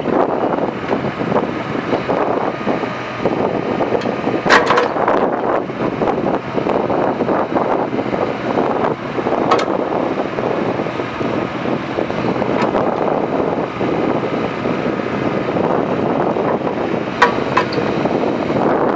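Kubota U25 mini excavator's diesel engine running steadily under hydraulic load as the boom and bucket are worked, with a few short sharp metallic clinks from the arm and bucket linkage.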